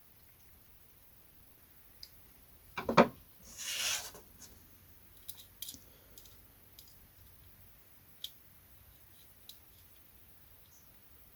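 Small kit parts and hardware being handled by hand: a quick cluster of sharp clicks about three seconds in, a short scraping rasp right after, then a few faint scattered ticks.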